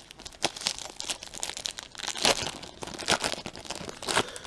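Crinkly wrapper of a 1988 Score baseball card pack being torn open and pulled off the cards, with irregular crackling and tearing throughout.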